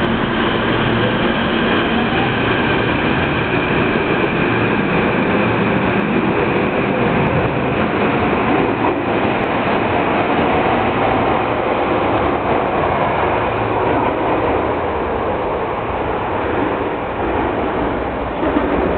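Tokyo Metro Hibiya Line subway train pulling out of an underground station, its motors and wheels running loudly and steadily with a steady whine, easing off slightly near the end as the last cars leave.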